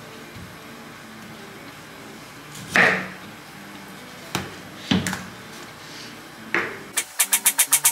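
A ceramic kitchen knife cutting through a boiled bamboo shoot and knocking on a wooden cutting board, four separate cuts spread over several seconds, the loudest about three seconds in. Near the end, music with a fast ticking beat starts.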